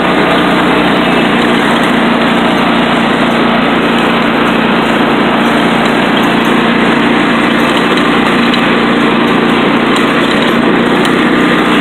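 Riding lawn mower's small engine running steadily while the mower drives across grass, an even, unchanging drone.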